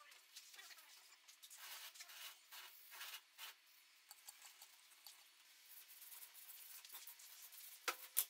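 Faint scraping and rubbing strokes, a few of them a little louder in the first half, then two sharp clicks near the end.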